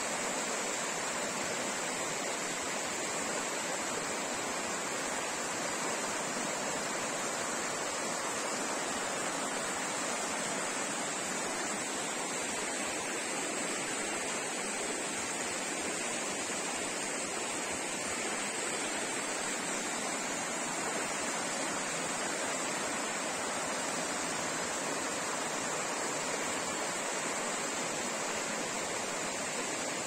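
Stream water rushing steadily, a constant unbroken sound of flowing water.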